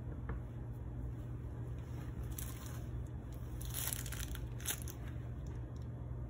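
Plastic piping bag of flood icing crinkling as it is gripped and squeezed, in short rustles about two and a half and four seconds in, over a steady low hum.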